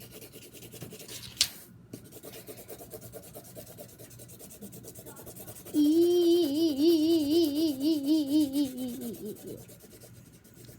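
Drawing on paper, a faint scratchy rubbing, with one sharp click about a second and a half in. About six seconds in, a voice hums a held note with a fast, even wobble for about three seconds, sliding down at the end.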